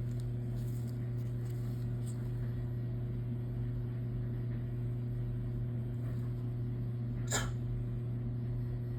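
Steady low background hum, with one short sharp click about seven seconds in.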